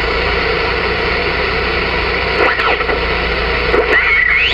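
Voyager VR9000 CB radio on 27.470 MHz lower sideband, its speaker giving a steady hiss of static. About two and a half seconds in, a garbled, mistuned sideband voice of distant Spanish-language skip fades in. Near the end it slides up in pitch as the tuning knob is turned.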